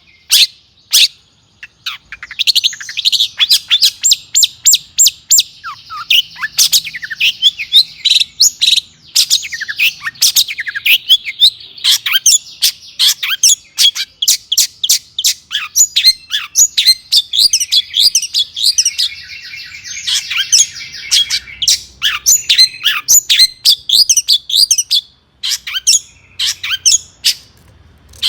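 Long-tailed shrike singing a loud, fast song: sharp, very short harsh notes repeated over and over, with dense twittering phrases and a rapid stuttering chatter in the latter half.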